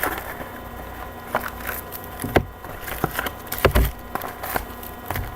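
A cardboard trading-card box being opened and handled, with packs taken out: scattered light taps and knocks, with a couple of duller thuds in the middle.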